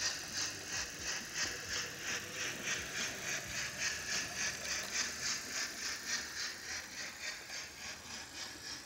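Märklin BR 96.0 H0 model steam locomotive running, its onboard sound playing a steady beat of hissing steam chuffs, about four a second, fading toward the end.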